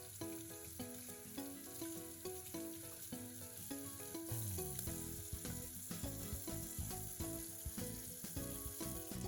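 Chicken gizzards sizzling as they fry in a pan, a steady hiss that grows a little stronger about halfway through, under background music.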